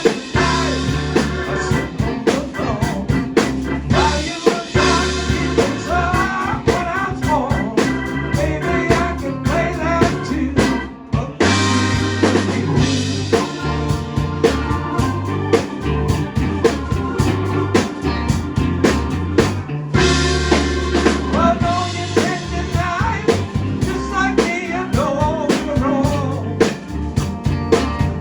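Live blues band playing a song with a steady drum beat, with a brief break about eleven seconds in.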